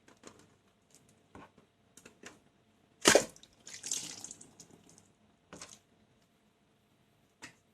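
A water-filled balloon bursting with one sharp pop about three seconds in, followed by about a second and a half of water splashing. Small clicks and rubbing from handling the balloon come before and after.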